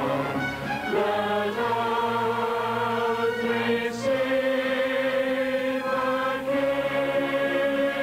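Mixed choir of men and women singing together in long held chords, the chord changing about a second and a half in and again about four seconds in.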